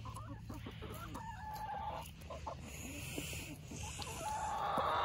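Domestic hens clucking in short calls, growing louder near the end.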